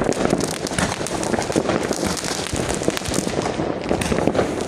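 Fireworks bursting overhead in a dense, continuous crackle of many quick pops and bangs.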